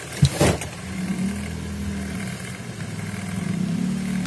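A sharp click or knock just after the start, then a steady low engine hum that grows slightly louder.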